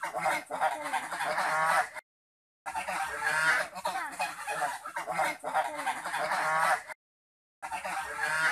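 Domestic geese honking over and over, several birds calling at once in a noisy chorus. The sound cuts out completely twice for about half a second.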